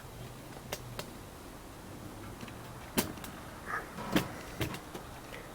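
A few scattered light clicks and knocks, the loudest about three seconds in, over a low steady hum: objects being handled and moved.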